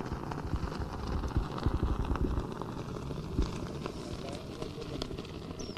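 Wind rumbling and buffeting on the microphone in irregular low thumps, with faint voices of onlookers here and there.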